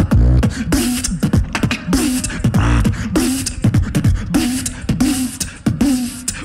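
A solo beatboxer performing into a handheld microphone through a PA: vocal kick drums, snares and hi-hat clicks with a hummed bass tone, in a steady repeating rhythm.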